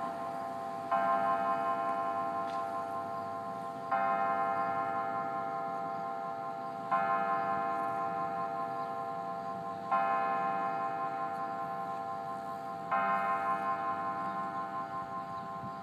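Church bell tolling the hour at six o'clock: five even strokes on one note, about three seconds apart, each ringing on and fading before the next.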